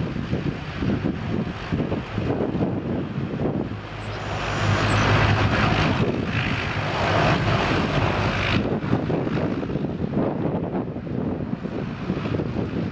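The Antonov An-225 Mriya's six turbofan engines running as the aircraft taxis. The engine noise grows louder about four seconds in and eases back a few seconds later.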